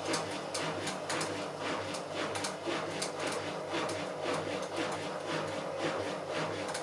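Bauknecht WA Plus 844 washing machine running with a steady hum and a rapid, irregular clicking clatter from the drum, the sign of a damaged drum bearing.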